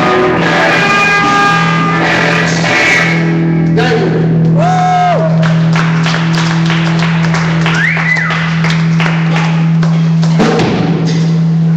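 Live rock band with electric guitars and a drum kit, loud: a low note held steadily under repeated cymbal and drum hits, with a high sliding note about halfway through, the sound of a song being brought to its close.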